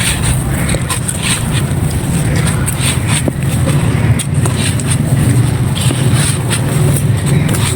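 Dry clay and claypot pieces crumbling: a dense run of crisp, irregular crackles and grainy crunches over a steady low rumble.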